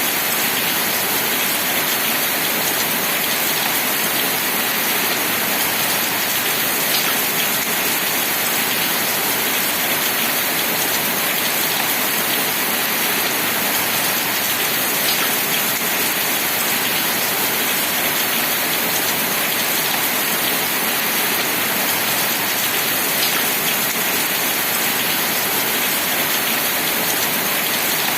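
Steady rain falling, an even hiss with occasional louder single drops.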